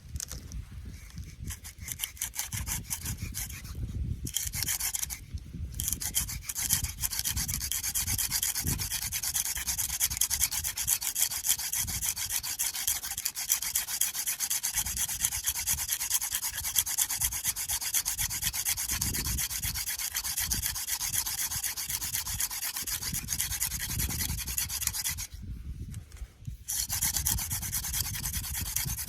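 Hand drill friction fire: a mullein stalk spindle spun back and forth between the palms on an artist conk fungus hearth, giving a continuous dry rubbing. It breaks off briefly about four and five and a half seconds in, and again near the end.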